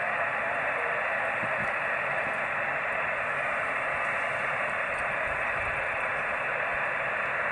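Steady static hiss from a 78 GHz amateur radio station's receiver, heard through its speaker. No reply comes through the noise.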